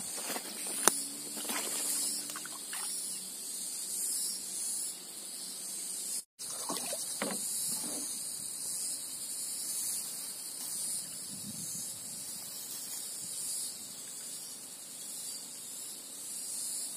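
Insects droning steadily at a high pitch in the waterside outdoors, with a sharp click about a second in and a few faint handling sounds.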